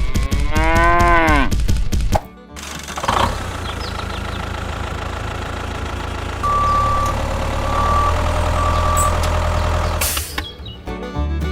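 A cow-like moo, one drawn-out call rising then falling in pitch, followed after a brief pause by a small engine running steadily. Three short beeps sound partway through the engine noise, and a short burst of noise comes near the end.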